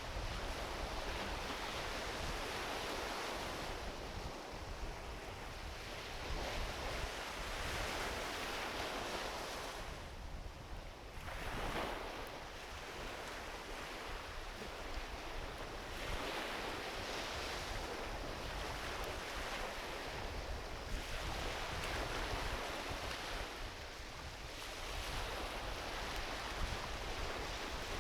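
Small ocean waves washing onto a beach, the surf swelling and falling back every few seconds, with a low rumble of wind on the microphone. A few faint pops from a driftwood campfire come through, one sharper near the end.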